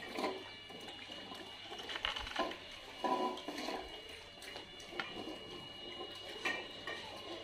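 Several dogs eating from stainless steel bowls: wet chewing and gulping, with the metal bowls now and then clinking and scraping on the tiled floor.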